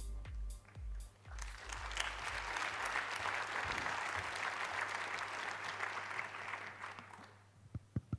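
Electronic music with a steady kick-drum beat ends in the first couple of seconds while an audience's applause rises, holds for several seconds and fades out. A few sharp clicks near the end.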